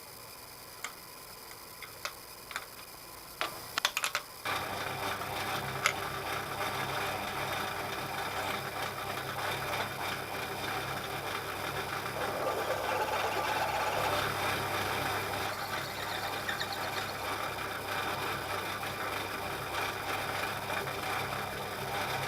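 Horizontal milling machine starting up about four seconds in, after a few sharp clicks, then running with a steady mechanical hum and whir.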